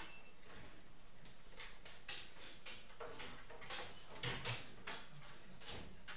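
Coloured pencil shading on drawing paper: a run of short, scratchy back-and-forth strokes, about two a second, faint.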